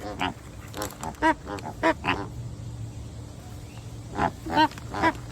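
Flamingos honking: a rapid run of short calls in the first two seconds or so, then three more near the end.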